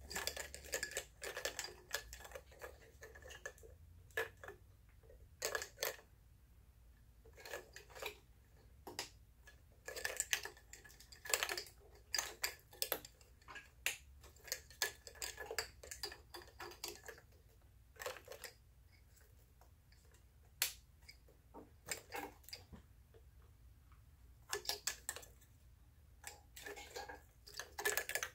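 Plastic wiring-harness connectors being handled and pushed onto R35 GT-R ignition coils, clicking into place, with wires rustling. The clicks come in irregular clusters with short pauses between them.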